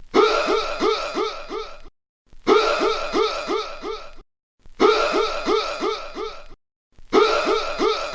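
A voice sound effect played four times with short gaps between. Each play is a quick run of six or seven short vocal sounds, each falling in pitch, somewhere between a laugh and a cough.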